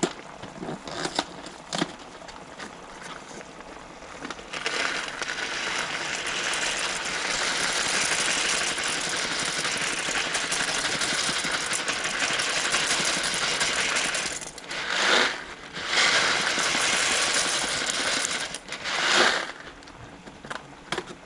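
Dry elbow macaroni poured from a cardboard box into a pot of broth: a dense rattle of small hard pieces falling that runs for about ten seconds, breaks off briefly, then comes again for a few seconds. A few light clicks come before the pour.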